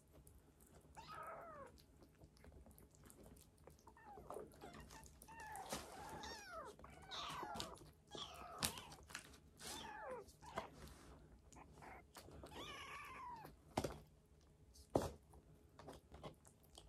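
Young kittens, about five weeks old, mewing over and over: short calls, each falling in pitch. Two sharp taps come near the end.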